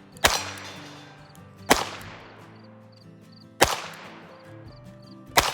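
Four shots from a Smith & Wesson 317-3 .22 LR revolver fired double action, about one and a half to two seconds apart, each followed by a short trailing echo.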